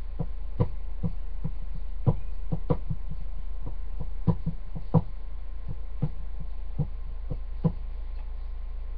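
Soft, uneven taps or knocks, about two a second and some louder than others, over a steady low hum.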